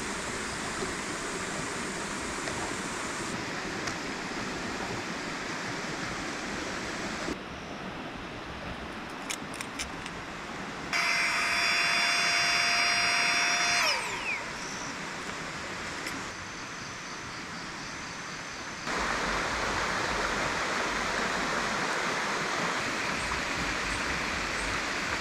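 Rushing river water across a series of cut-together clips. Midway, a motor runs at a steady high pitch for about three seconds, then winds down in pitch as it stops.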